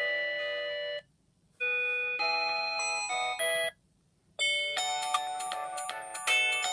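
LG C1100 ringtones played as .mmf files by a Samsung SGH-P910's synthesizer, a polyphonic chime-like melody. One tune cuts off about a second in; after a short silence comes a brief phrase, then another pause, and a new, busier tune starts a little over four seconds in.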